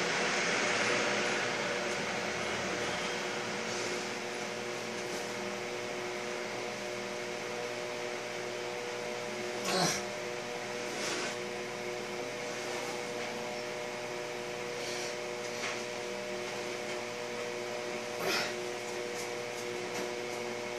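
Steady machine hum and hiss, with a few short knocks: a clear one about ten seconds in and another near the end.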